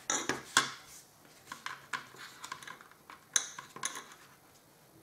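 Light clicks and taps of small plastic and resin model parts and tools being handled on a workbench, a few sharper knocks among quieter ticks.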